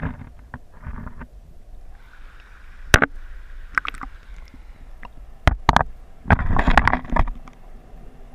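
Shallow mountain stream heard through a GoPro's waterproof housing held in the current: a low rumble of flowing water with gurgling. Several sharp knocks come between about 3 and 6 seconds in, the loudest about 3 seconds in, followed by a louder rush of water a little before the end.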